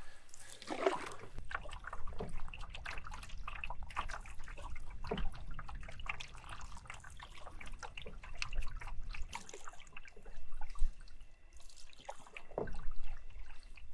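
Canoe paddle working through lake water: irregular splashes with trickling and dripping between them.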